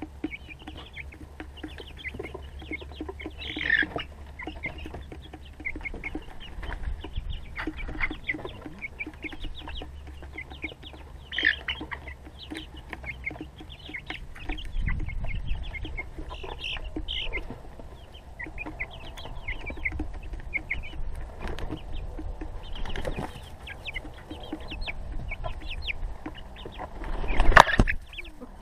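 Young chickens clucking and peeping over and over. Near the end, a loud burst of wing flapping as one flies out of the coop door onto the wooden ramp.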